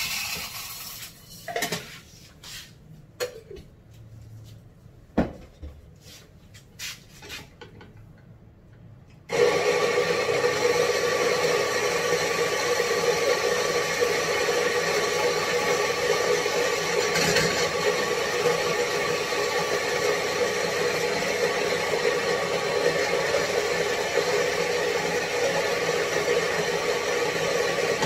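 Coffee beans rattling into the grinder hopper, then a few scattered clicks and knocks. About nine seconds in, the Rancilio Rocky coffee grinder's motor switches on and runs with a steady hum, its burrs grinding coffee beans.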